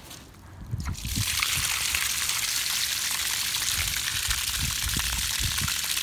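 Garden hose spray nozzle switched on about a second in, then a steady spray of water over a hand and a soil-caked iron buckle, rinsing the dirt off it.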